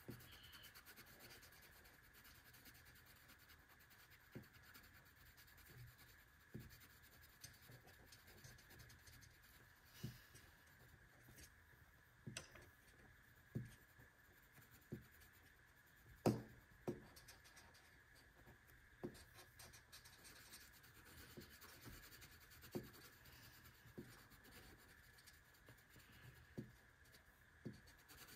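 Faint rubbing of colouring on paper, with scattered light taps and clicks, the loudest about 16 seconds in, over a steady faint high hum.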